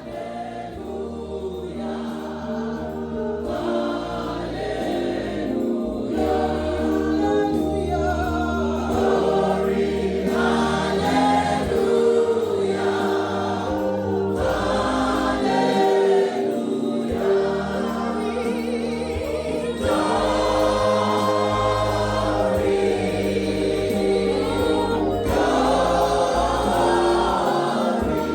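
Choir singing gospel music over a low bass line, rising gradually in loudness over the first several seconds and then holding steady.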